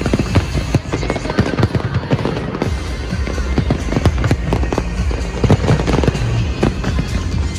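Large fireworks display: many bangs and crackles of shells bursting in quick, irregular succession, with music playing underneath.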